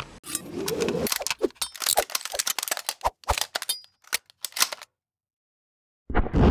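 Logo sting sound effects: a fast, uneven string of gunfire-like cracks and clicks, then a second or so of silence, then a loud boom that keeps rumbling.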